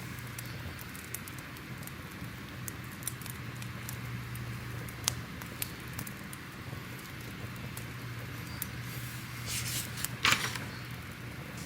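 Crackling fire: a steady hiss with scattered sharp pops and snaps over a low steady hum, with a louder burst of crackling about ten seconds in.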